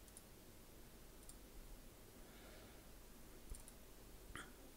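Near silence with about four faint computer mouse clicks.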